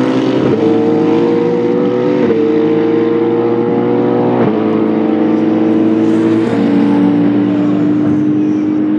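Loud hypercar race engines accelerating away at full throttle. The pitch climbs and then drops sharply at four upshifts about two seconds apart, and holds steady near the end.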